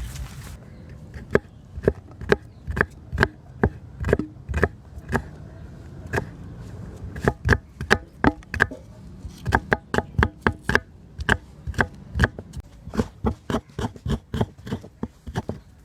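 Knife chopping on a cutting board: a long series of sharp, separate strokes at an uneven pace, some coming in quick runs.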